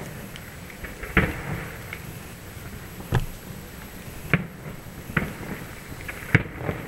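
Distant fireworks shells bursting over water: a series of sharp bangs, about five main ones a second or so apart, with smaller pops between them.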